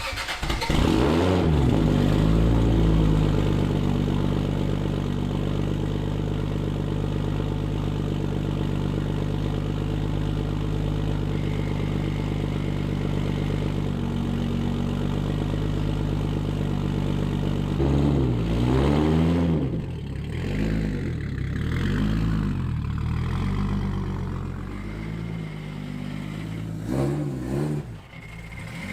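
Single-turbo 2JZ inline-six of a MKIV Toyota Supra through a 4-inch Tomei Expreme Ti titanium cat-back exhaust: it comes in with a brief flare, settles into a steady idle, then in the last part is revved in a series of blips that rise and fall.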